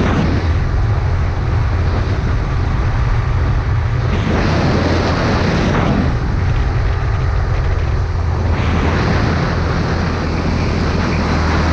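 Go-kart running at speed, heard onboard: a steady low engine drone under a rush of wind and track noise. The higher rush eases off twice for a few seconds.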